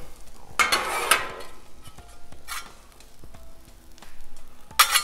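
Metal griddle spatulas scraping and knocking on the steel top of a Blackstone griddle, pushing diced peppers over the potatoes, with faint frying underneath. A longer scrape comes about a second in, a short one midway and a sharp, loud one just before the end.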